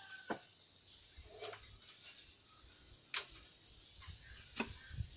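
Aluminium cooking pot and its lid clinking as the pot is set on a small wood-fired stove: four sharp, short clinks, irregularly spaced.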